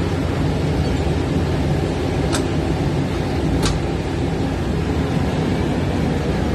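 Generator set engine running steadily with a loud, even low rumble. Two sharp metallic clicks, a little over two seconds in and again about a second later, as the canopy's door is shut and its latch handle turned.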